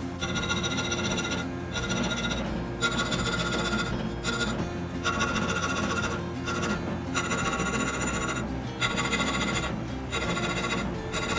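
Hand filing in repeated strokes of about a second or more, each with a high-pitched scraping ring, broken by short pauses between strokes.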